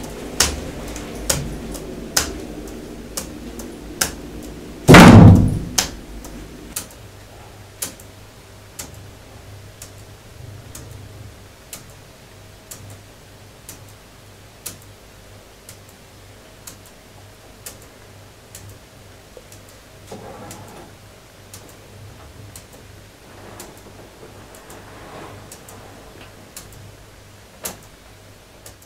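Sharp ticks about once a second, a laptop space bar pressed to let each second pass. About five seconds in, a loud slam, a door shutting. A low steady hum runs beneath.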